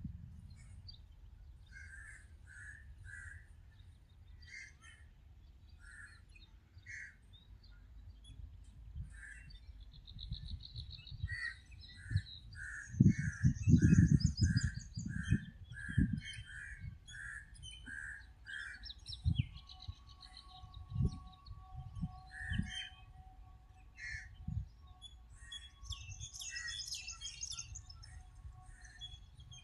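Several small birds calling and chirping, including a run of short repeated calls at about three a second and higher thin trills. Low rumbling thumps, the loudest sound, come in a cluster about halfway through.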